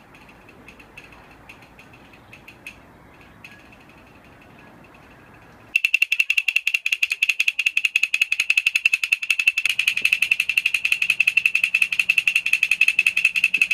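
Faint outdoor background for about six seconds, then a hollow wooden block (Chinese opera woodblock) is struck with two thin sticks in a fast, even roll of bright, sharp clacks. The roll starts suddenly and keeps going.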